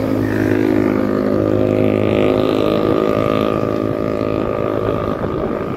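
Motorcycle engine running at a steady cruising speed, a constant drone that holds one pitch, with road and wind noise underneath.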